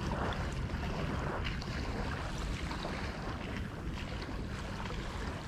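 Wind rumbling steadily on the microphone over gently lapping water, with a few faint clicks.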